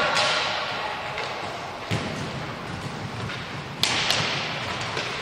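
Roller hockey play on a wooden hall floor: inline skate wheels rolling under a steady echoing hall noise, with sharp clacks of stick and puck, one about two seconds in and two in quick succession near the four-second mark.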